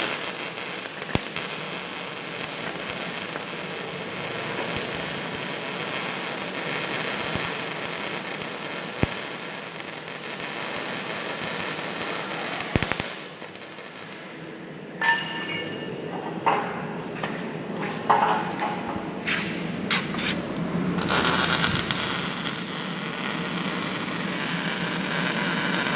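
MIG welder arc crackling and hissing in a long steady run. About halfway through it stops for several seconds of sharp metallic clinks and knocks, then the crackling run starts again.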